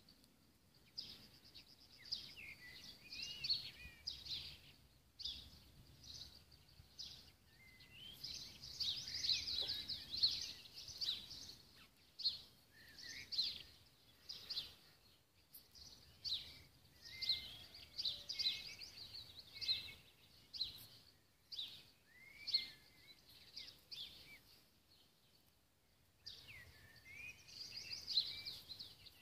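Wild songbirds singing in the garden: high chirping and warbling phrases of a few seconds each, repeated with short pauses throughout.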